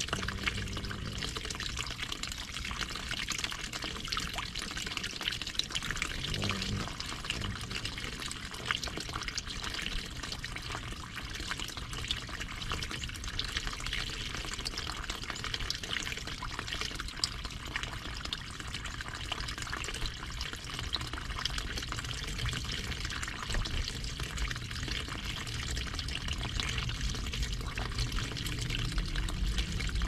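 Water of a small garden stream running and trickling steadily, with a low steady hum underneath.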